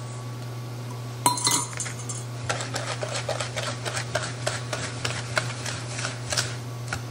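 A single clink with a brief ring about a second in, then a wire whisk beating sugar into a butter, flour and egg mixture, ticking and scraping against the mixing bowl in quick strokes, roughly four a second.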